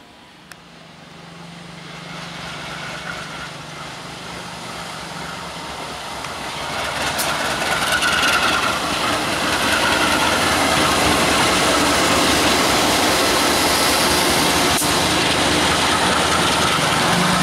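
KAI CC 201 diesel-electric locomotive approaching with its diesel engine running, growing louder over the first several seconds, then passing close, steady and loud.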